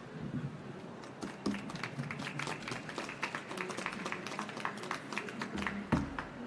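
Scattered light taps, clicks and knocks as people move about a stage and handle the chairs, papers and microphones at the table, over the steady hubbub of a large exhibition hall. There is a low bump about six seconds in.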